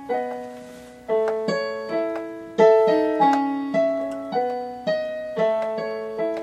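Piano introduction to a song: chords struck about twice a second, each dying away before the next, with no singing yet.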